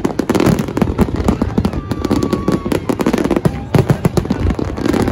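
Fireworks display: a dense, rapid barrage of shells bursting, with many overlapping bangs and crackles every second.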